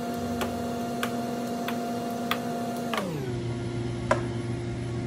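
Light clicks about every two-thirds of a second as a pizza cutter wheel cuts slits in dough on the counter, over a steady machine hum that drops in pitch about three seconds in.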